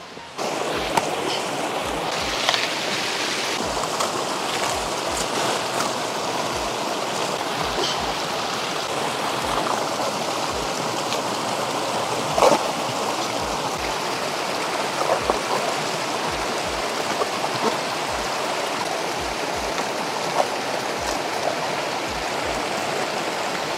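Shallow rocky stream babbling steadily, with a few short clicks and taps now and then.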